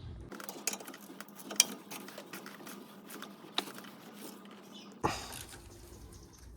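Irregular light metallic clicks and rattles of hand tools working on a new inner tie rod being threaded onto the steering rack, with a single louder knock about five seconds in.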